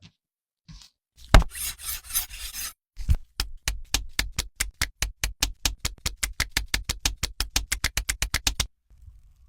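A brief crackling rustle with one sharp knock, then a quick, even series of sharp knocks, about six a second, for nearly six seconds.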